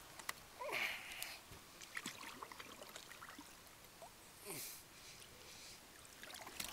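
Faint water splashes and sloshing at the side of an aluminum jon boat as a large flathead catfish is lowered back into the river, with a few light clicks and knocks. There is a short splash about a second in and another around the middle.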